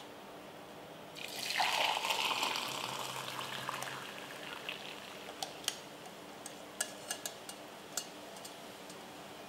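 Hot noodle cooking water poured from a pot through a metal mesh strainer into a glass measuring jug. The splashing pour starts about a second in, is loudest at first, and tapers off over a few seconds. A scattering of sharp taps and drips follows.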